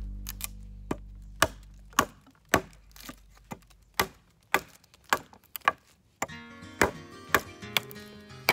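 Hatchet chopping into a dry branch resting on a log: sharp wooden strikes about twice a second. Background music fades away over the first few seconds and comes back about six seconds in.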